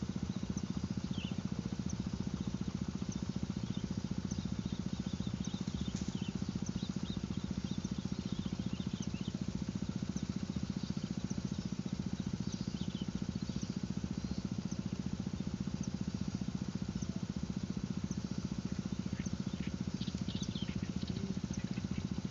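A motor running steadily with a low, evenly pulsing drone, while small birds chirp in short calls over it.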